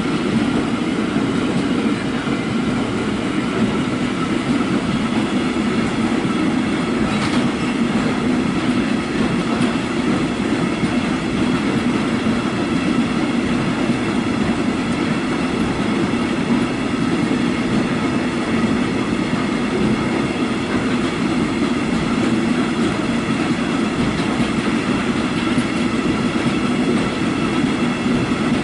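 Freight train of flat wagons rolling steadily past, wheels clattering on the rails with a continuous metallic ringing, and a short sharp click about seven seconds in.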